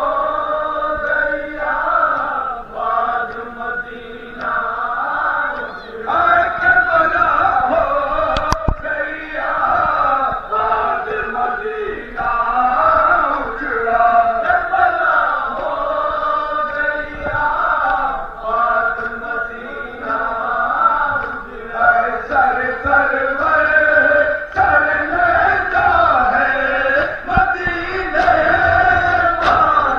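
A crowd of men chanting a mourning lament (noha) together, going on without a break, with a sharp click about eight seconds in.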